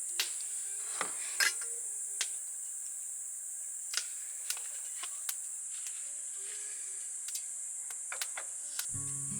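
Steady high-pitched chorus of insects, with scattered light clicks and knocks over it. Background music comes in near the end.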